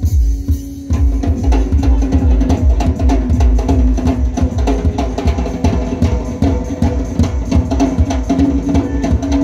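Live band music driven by drums and percussion: a fast, dense beat with heavy bass drum over a held low note. The full percussion comes in about a second in.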